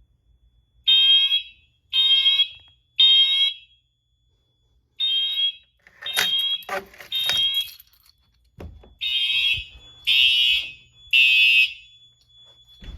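Fire alarm horns sounding in the code-3 temporal evacuation pattern: three blasts about a second apart, a pause, then three more, over and over. A couple of knocks come in the middle.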